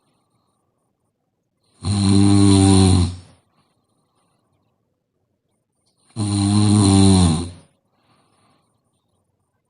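A sleeping woman snoring: two long, pitched snores about four seconds apart, each lasting about a second and a half, with near silence between them.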